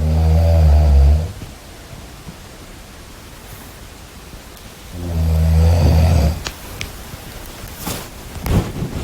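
Snoring: two loud, low-pitched snores about five seconds apart, each lasting a little over a second, with a quieter breathy hiss between them.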